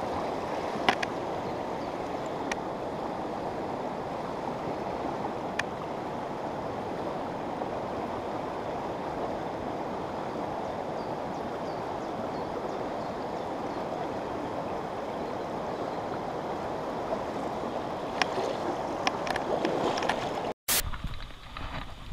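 Fast-flowing river water rushing steadily over a shallow stony bed, with a few light clicks. The sound cuts off abruptly near the end.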